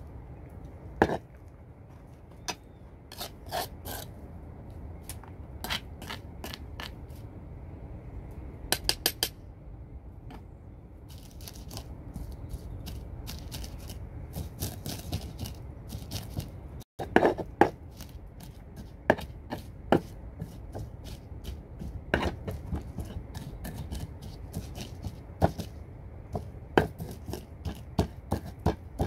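Stone pestle pounding and grinding ingredients in a stone mortar: irregular sharp knocks of stone on stone, sometimes in quick runs, with crushing and scraping between strikes.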